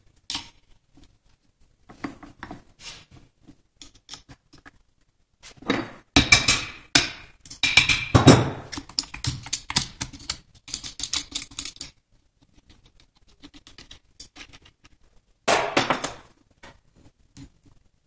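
Metal transmission parts clinking and scraping as a Hondamatic clutch drum is worked loose on its splined main shaft and lifted off. Scattered clicks, a busy run of metallic clicks and scrapes with some ringing in the middle, and another short burst of scraping near the end.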